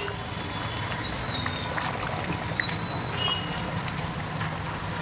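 A ladle stirring thick chicken curry gravy in a metal pot, with scattered light clicks of the ladle against the pot over a steady background hum.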